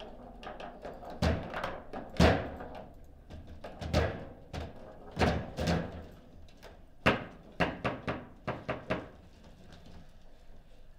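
Table football play: the ball and the rods' plastic figures knocking, with sharp thunks of the ball being struck and hitting the table walls. About a dozen separate knocks are spread over the first nine seconds, the loudest about two seconds in, with a quick run of them near the end, and a goal is scored early on.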